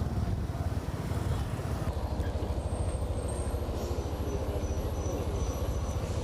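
Motorcycle on the move, its engine running under a heavy, fluttering wind rumble on the microphone.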